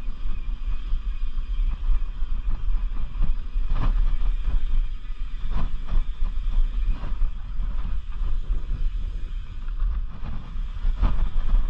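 Mountain bike ridden over a dirt singletrack: a steady rumble of wind buffeting the camera microphone and tyres rolling on the trail, broken by sharp knocks and rattles as the bike hits bumps, the loudest about four, five and a half and eleven seconds in.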